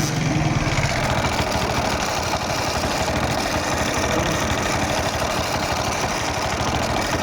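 Hero Splendor Plus single-cylinder four-stroke engine idling steadily with a fast, even clatter. This is the strange noise the engine makes once it is started.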